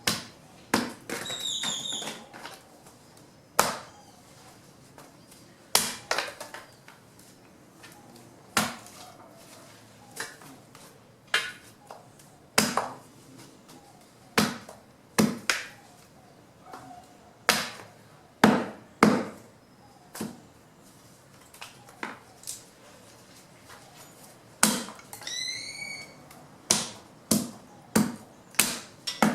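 Fallen branches being chopped by hand into wood chips: sharp blade strikes on wood, about twenty of them at an uneven pace of one every one to two seconds.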